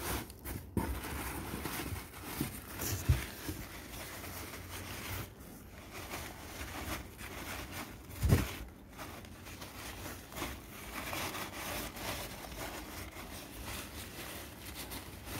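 Paper and plastic packing wrap crinkling and rustling as a hand rummages through it inside a cardboard box, with a few dull thumps. The loudest thump comes about eight seconds in.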